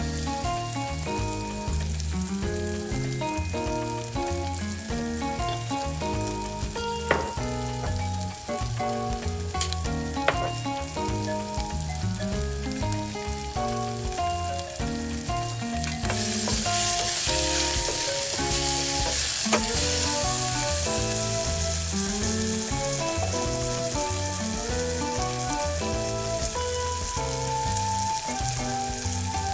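Sliced eggplant and onion frying in a stainless steel saucepan, a steady sizzle that grows louder about halfway through, with a few sharp clicks of the wooden spatula against the pan. A melodic backing track plays underneath.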